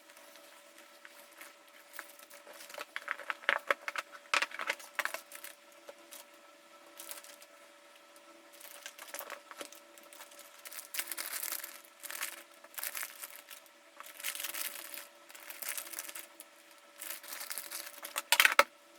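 Card-packing materials handled close up: plastic sleeves and wrapping crinkling and rustling in short bursts, with clicking handling noises about three to five seconds in and a louder crackle near the end.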